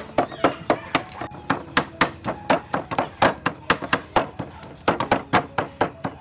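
Cleaver chopping on a thick wooden chopping block: fast, even strokes, about four or five a second, mincing pork and garlic.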